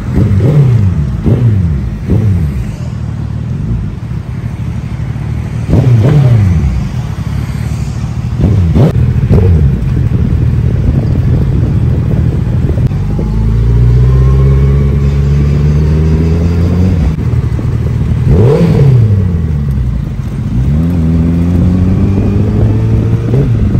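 Suzuki Hayabusa's inline-four engine revving and pulling away, its revs rising and falling several times, with steadier stretches of cruising in the second half.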